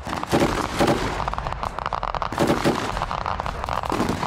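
Machine gun firing rapidly and continuously in a live-fire exercise, with louder bursts about once a second, right after the order to engage infantry with the PKT.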